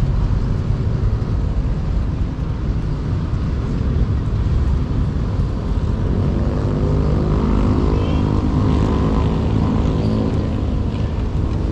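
Wind noise buffeting the microphone; from about six seconds in, a motor engine's steady drone joins it.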